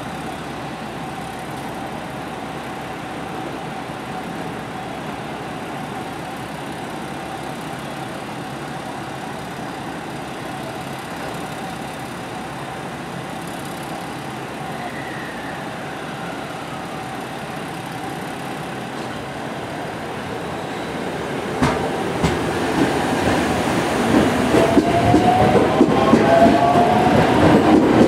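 An Ainokaze Toyama Railway 521-series electric multiple unit stands with a steady hum, then moves off about twenty seconds in. Its inverter-driven traction motors whine upward in several tones as it accelerates past, with wheels clacking over rail joints near the end.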